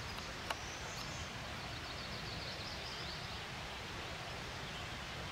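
Outdoor ambience: a steady hiss, with a bird singing a quick run of faint high notes in the background for the first few seconds and a single sharp click about half a second in.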